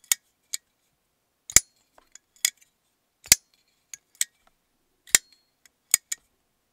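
A titanium Freeman button-lock flipper knife flipped open and shut about four times in a row. Each cycle gives a heavy metallic snap and a lighter, sharper click, the sound of the blade deploying and locking, then being closed on the button lock's strong detent.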